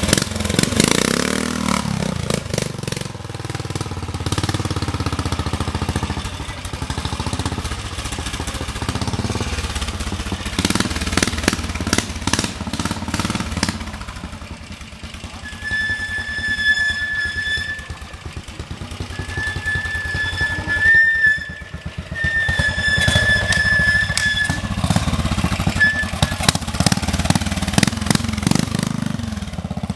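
Vintage trial motorcycle engines running and revving up and down as the bikes are ridden slowly over rough ground. A high, steady whistle-like tone sounds several times in the second half.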